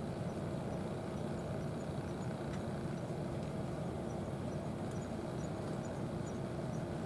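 A steady low mechanical hum, like an engine running at idle, holding even throughout, with a few faint high chirps above it.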